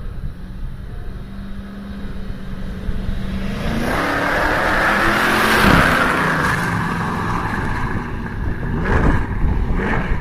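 '32 coupe hot rod's engine approaching and driving past, loudest as it goes by with its pitch dropping, then pulling away down the road with a couple more rises in engine noise near the end.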